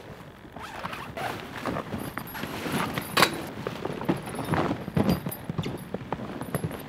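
Tent fabric rustling and flapping as it is pulled from its bag and shaken out, mixed with footsteps crunching in snow. There is a sharper snap of the fabric about three seconds in.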